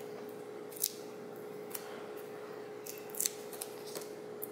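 Adhesive foam dots and their backing sheet being handled: a few short, crisp ticks and crackles as the dots are picked and peeled off and pressed into a stack. A faint steady hum runs underneath.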